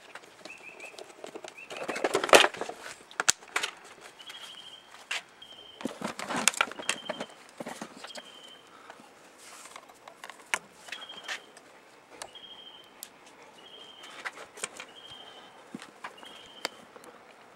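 Handling noise: rustles, knocks and clicks as the plastic toolbox case and wires are moved about, with a bird's short high chirp repeating about once a second in the background.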